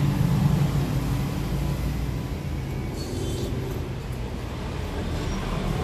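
Steady low rumble of road traffic from the street, with a short higher-pitched noise about three seconds in.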